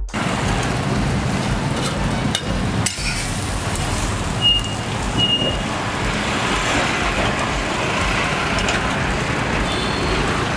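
Roadside street-food stall ambience: a steady wash of passing traffic mixed with the noise of the hot dosa griddle. A couple of sharp clicks come a little over two seconds in, and two short high beeps come around the middle.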